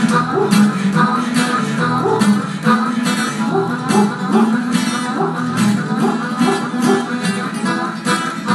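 Live acoustic music: a guitar strummed in a steady, driving rhythm.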